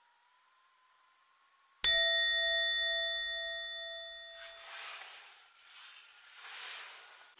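A bright bell-like ding sound effect strikes once about two seconds in and rings away over a couple of seconds. It is followed by a run of hissing noise bursts.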